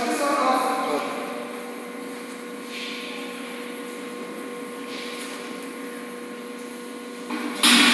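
Machinery of a mozzarella cheese processing unit running with a steady electric hum. Near the end a loud rushing noise starts suddenly.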